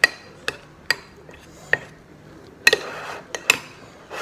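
Metal spoon stirring oats in a ceramic bowl: about six sharp, ringing clinks at irregular intervals as the spoon knocks the bowl's sides, with a short scrape against the bowl about three seconds in.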